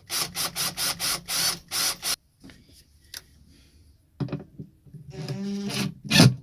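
Makita cordless impact driver driving a screw in short trigger bursts, then running for about two seconds with a steady pitched buzz, and a last short burst near the end.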